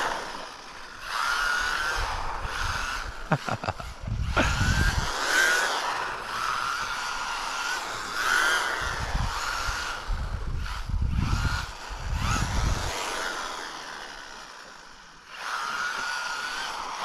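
Electric motor and drivetrain whine of a 1/14-scale MJX Hyper Go RC rally car running on a 2S lipo, rising and falling in pitch as the throttle comes on and off. Low rumbles come and go under the whine, and the whine fades about 14 seconds in, then picks up again.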